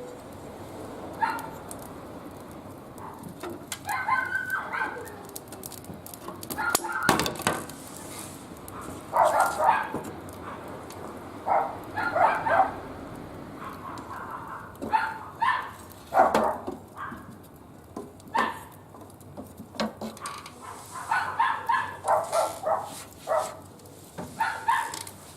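Short, repeated calls of a dog, coming in clusters and more often near the end, with a few sharp crackles and pops from a wood fire burning in a barbecue grill.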